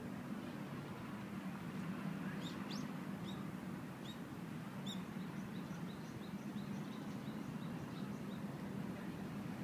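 A small bird chirping: a few sharp, high calls, then a quick run of short repeated notes, about four a second. Under it runs a steady low hum of distant traffic.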